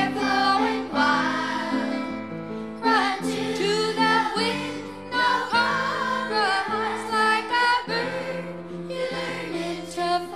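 A song playing: singing over sustained instrumental chords.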